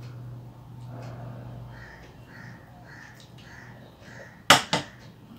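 A crow cawing, about six short calls roughly twice a second. Then two sharp metallic clinks of a metal bowl knocking against the plate, the loudest sounds.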